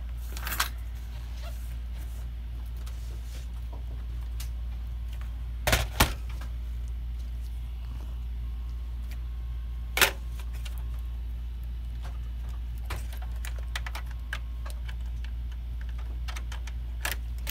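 A few sharp clicks and knocks of a PlayStation 4 power supply board and console chassis parts being handled and set into place, two close together about six seconds in and another about ten seconds in. A steady low hum runs underneath.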